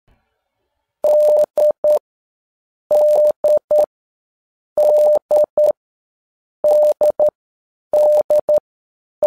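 Morse code tone beeping the same letter over and over: one long beep then two short ones, dash-dot-dot, the letter D, five times with short pauses between.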